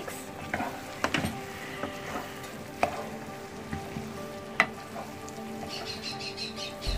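Chow mein noodles with prawns and vegetables sizzling in a non-stick frying pan as they are stirred and tossed with a wooden spatula, with a few sharp knocks of the spatula against the pan.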